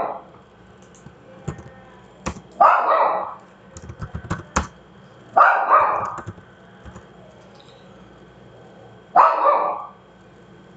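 A dog barking in short bouts a few seconds apart: single barks and a quick double bark. Scattered light clicks and taps fall between the barks.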